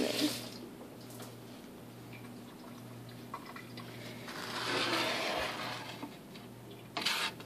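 Food sizzling faintly in a frying pan, the hiss swelling for about a second near the middle, over a low steady hum. A couple of sharp clicks near the end.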